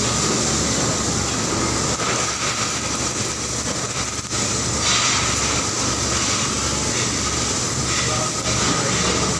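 Steady machinery noise on a car-seat assembly line: a constant hum with hiss above it, and no single loud event.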